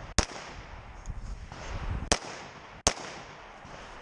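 Three pistol shots from a red-dot-sighted handgun during a USPSA stage run: one just after the start, then two more about two and three seconds in, the middle one a little softer.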